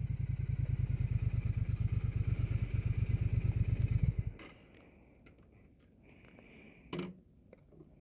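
Triumph Bonneville T100's 900 cc parallel-twin engine running through a Zard X-pipe decat, an even, fast exhaust pulse at steady low revs. About four seconds in it stops abruptly, leaving near quiet with a few light clicks and a thump near the end.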